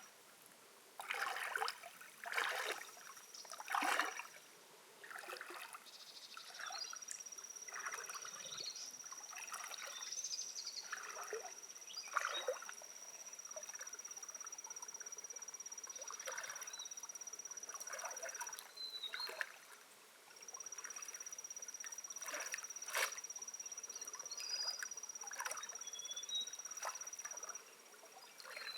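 Water splashing and trickling in irregular bursts. From about seven seconds in, an insect trills steadily at a high pitch, breaking off for a moment about twenty seconds in.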